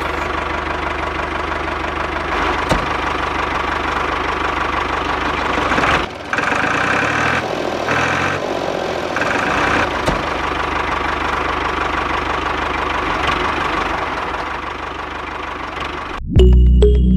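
Small electric motors of a home-made toy tractor and drilling rig running steadily with a gear whirr; the sound changes between about six and ten seconds in. Music comes in near the end.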